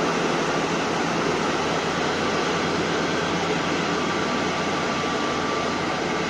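Steady drone of heavy diesel mining machinery running close by, from a Tata Hitachi hydraulic excavator and a large haul truck, with a faint steady whine above the rumble.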